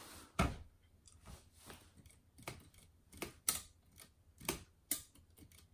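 Olivetti Lettera 31 portable typewriter being worked by hand: about a dozen separate mechanical clicks and clacks, irregularly spaced.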